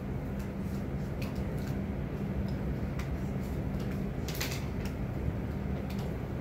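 Quiet classroom room tone: a steady low hum, with scattered small clicks and a brief rustle about four and a half seconds in as students write at their desks.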